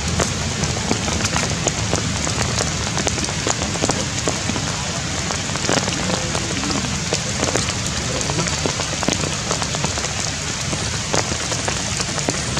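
Steady rain falling on leaves and ground: a dense hiss dotted with the ticks of individual drops.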